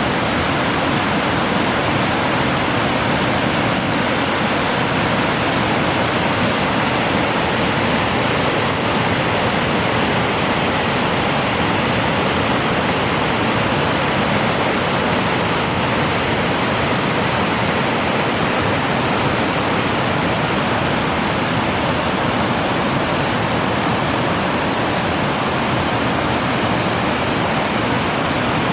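Waterfall rushing steadily, a constant full roar of falling water.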